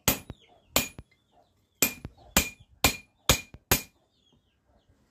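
Hand hammer forging a steel bearing outer race, stretching it out. Seven sharp, ringing metal blows: two in the first second, then five about half a second apart, stopping just before four seconds.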